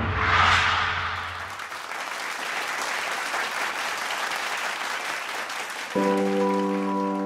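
A loud music passage dies away at the start, followed by audience applause. About six seconds in, music comes back in with a held chord.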